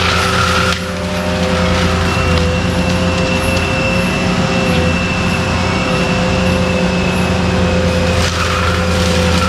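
ASV RT-120F compact track loader running steadily with its TMC Cancela forestry mulcher head spinning, a constant engine drone with a thin high whine over it from about two seconds in.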